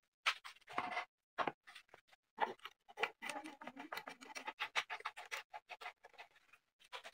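Handling noise of a wooden miter gauge being fitted onto a disc sander's table: irregular light knocks and clicks, with a denser run of scraping and rubbing in the middle.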